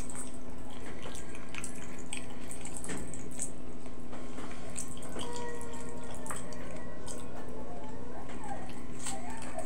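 Close-miked wet mouth sounds of someone eating fermented rice with his fingers: many short lip smacks, finger sucking and chewing clicks at an irregular pace.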